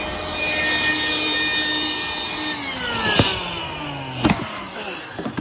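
Wet/dry shop vacuum pulling through its hose on the AC condensate drain line with a steady motor whine. About two and a half seconds in it is switched off and the motor winds down in falling pitch, with two sharp knocks along the way.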